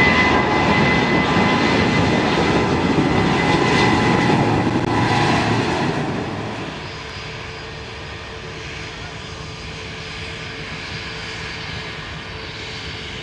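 Jet airliner's engines running loud close by, with a steady high-pitched whine over the engine noise; about six seconds in the sound drops off to a quieter, steadier level as the aircraft moves away.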